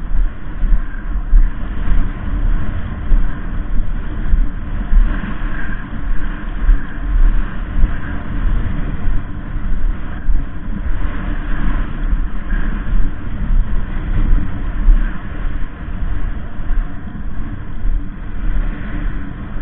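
Wind buffeting the camera's microphone: a loud, steady low rumble that rises and falls in gusts.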